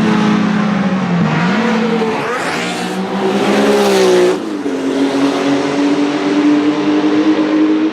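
Porsche 935 K3 race car's twin-turbo 3.2-litre flat-six running loud: the engine note climbs for about two seconds, drops sharply a little past halfway, then holds a steady lower pitch.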